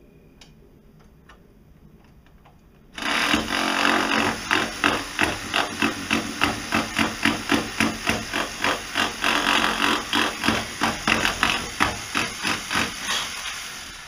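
Jeep Cherokee XJ's starter cranking the engine: after a few faint clicks, a loud rhythmic chugging of about three pulses a second starts about three seconds in and runs for some ten seconds before dying away near the end.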